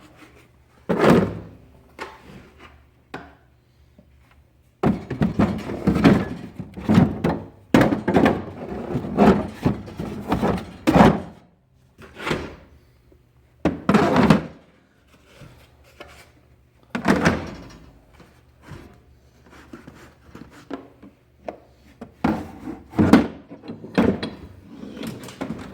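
A string of thunks and knocks from a steel roll-away tool box as tools are handled and its drawers are shut and opened. The knocks come singly at first, then bunch into a dense run through the middle, then thin out again.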